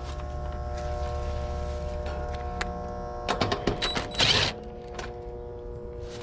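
Steady electrical hum of several tones from the heat pump's live electrical gear, whose contactor is still pulled in. Between about three and four and a half seconds in come a run of clicks and a short metallic rattle as parts are handled.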